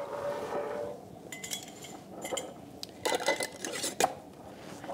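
Metal screw bands being twisted finger tight onto glass mason jars, scraping and clinking on the jar threads in a few short rounds about a second apart.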